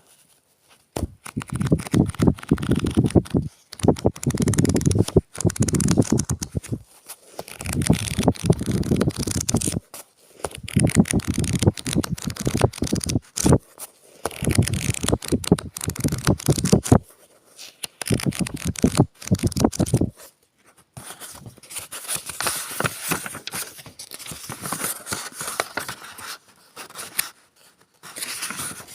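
Paper pages of a book being handled and turned, in a series of rustling bursts a second or two long with short pauses between them; from about twenty seconds in the rustling is quieter and lighter.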